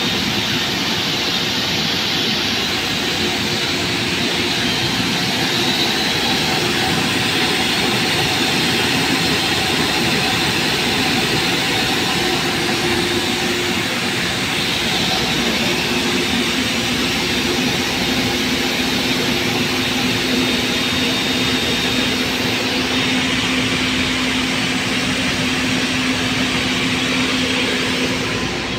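3-axis CNC router running: a loud, steady machine whir, with a few faint tones that come and go.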